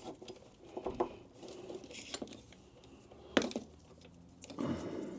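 Light clicks and rattles of e-bike wiring and plug connectors being handled, with a sharper click about three and a half seconds in.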